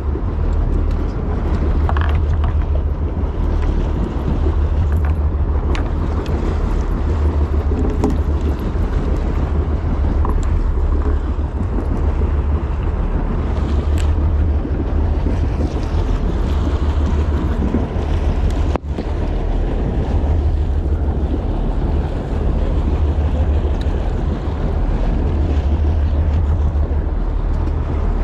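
Wind buffeting the microphone aboard a fishing boat, a steady low rumble with water noise beneath it, broken by a brief drop-out about nineteen seconds in.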